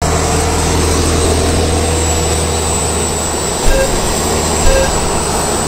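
Turbine engines of model jet aircraft and a supercar's engine running steadily at a start line, giving a steady loud rush with a high-pitched whine and a low hum. In the second half, short countdown beeps sound about a second apart, counting down to the start of the race.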